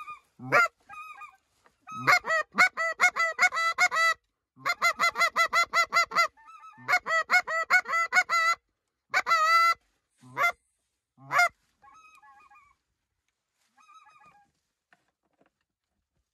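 Geese calling in fast runs of short, high yelping notes, about five a second. The runs give way to a few single notes and then fade out.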